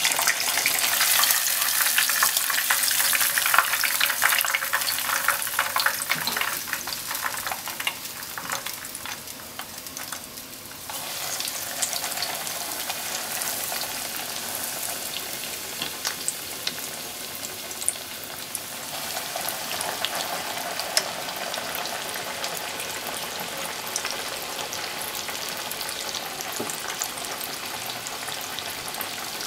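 Breaded pork cutlet (tonkatsu) deep-frying in hot oil in a pot, a dense crackling sizzle. The sizzle eases off for a few seconds and then surges again about eleven seconds in, as the cutlet is moved with chopsticks.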